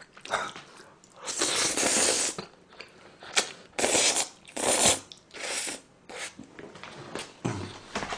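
Spaghetti slurped and chewed close to the microphone: one long slurp about a second in, then a run of shorter slurps and chewing.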